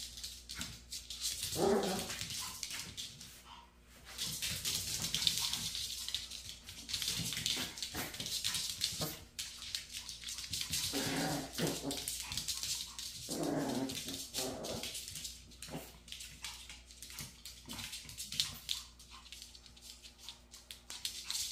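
Two Maltese dogs play-fighting, with small clicks and scuffling from their claws and paws on a hard floor. A few short dog vocalisations come near the start and twice around the middle.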